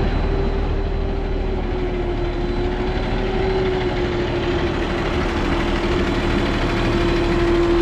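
Pikes Peak cog railway train running: a steady mechanical drone and rumble with one sustained whine that drifts slightly lower in pitch.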